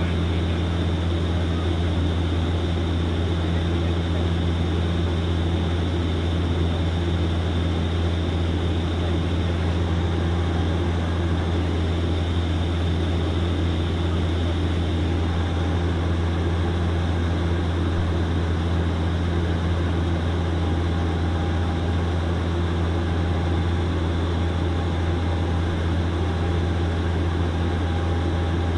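Cabin sound of a De Havilland Canada Dash 8 Q400 turboprop in flight, heard from a window seat beside the propeller: the six-bladed propellers' steady low drone and hum over a constant rush of engine and airflow noise.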